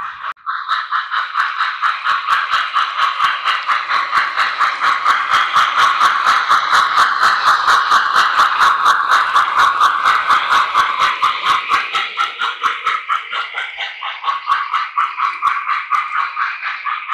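Model steam locomotive's sound system chuffing in an even rhythm of about four beats a second over a steady steam hiss, swelling in the middle and easing toward the end as the engine runs on the layout.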